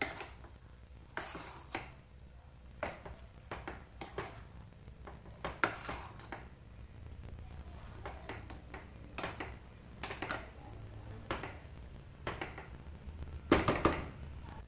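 A metal ladle stirring a thick rice-and-vegetable mixture in a stainless steel pressure cooker pot, with irregular scrapes and clinks against the pot. A few louder clinks come near the end.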